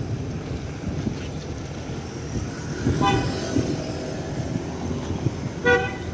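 Steady rumble of passing traffic with two short horn toots, one about three seconds in and a louder one near the end.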